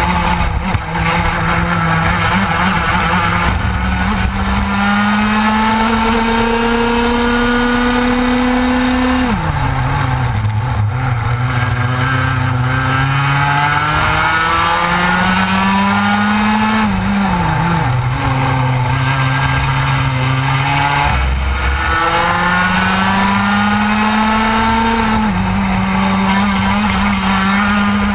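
Onboard sound of a TKM two-stroke racing kart engine at full racing speed. Its pitch climbs steadily along each straight and falls away sharply three times as the driver lifts off for corners, with a smaller dip near the end.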